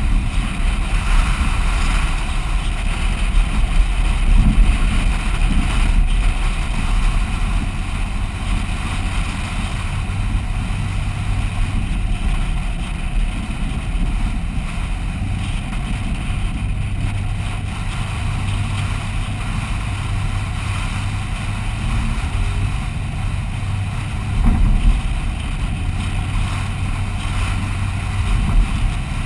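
Vehicle driving on beach sand, heard from the vehicle itself: a steady low rumble of engine and tyres, swelling briefly about four seconds in and again near the end.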